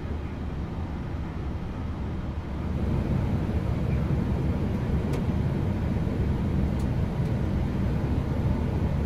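Steady rushing flight-deck noise in an Airbus A321 on final approach: airflow and engine noise, rising in level about three seconds in.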